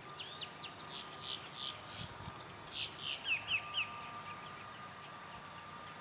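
Red-bellied woodpecker calling: two quick series of short, sharp, falling notes, about four or five a second, the second series louder.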